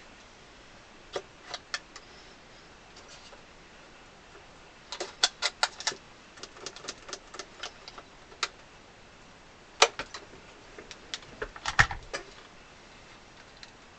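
Clamps being fitted and tightened on an accordion body: a string of sharp clicks and knocks, with a quick run of about six clicks about five seconds in, a single louder knock near ten seconds, and a cluster of clicks near twelve seconds.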